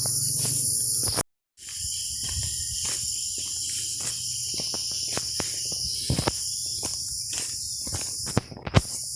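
Steady high-pitched chorus of insects, crickets, with scattered sharp clicks and knocks close by. The sound cuts out completely for a moment about a second in, and the insect chorus dips briefly near the end.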